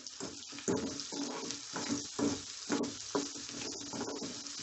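Sliced onions sizzling in hot oil in an aluminium kadai, while a steel spoon stirs and scrapes them against the pan in quick strokes about twice a second.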